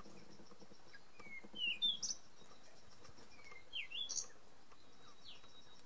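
A songbird calling twice, each time a short phrase of quick sweeping chirps, about two seconds apart. A faint, steady insect trill runs underneath.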